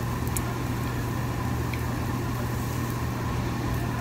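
Steady low hum of a restaurant's ventilation exhaust running over a haze of dining-room noise, with a couple of light clicks about a third of a second in.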